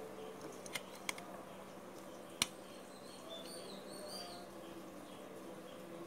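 Small sharp clicks from handling a pen and a plastic circuit box: three clicks in the first two and a half seconds, the last the loudest, over a faint steady hum, with a few faint high chirps about three to four seconds in.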